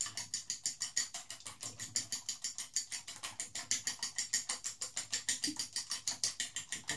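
Fork beating seasoned eggs in a shallow ceramic dish: a fast, even clicking of the fork against the dish, about seven strokes a second.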